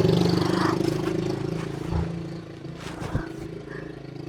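A motor vehicle engine running with a steady low hum that fades away over the first couple of seconds, followed by two short knocks.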